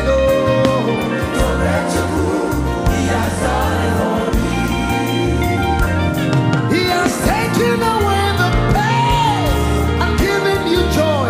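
Live gospel worship music: a band with bass and drums plays under a sung melody.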